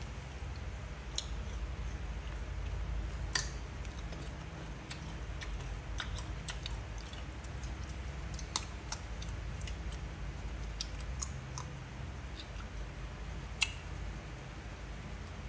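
Coloured pencil working on paper: faint scratchy strokes with scattered small clicks and taps at irregular intervals, over a steady low hum.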